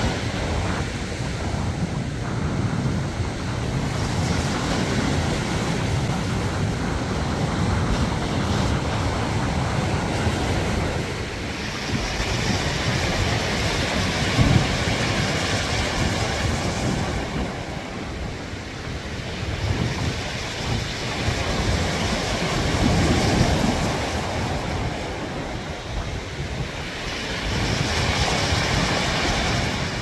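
Small waves breaking and washing over a rocky, pebbly shore, the hiss of the surf swelling and easing as each wave comes in. A low wind rumble on the microphone lies under it throughout.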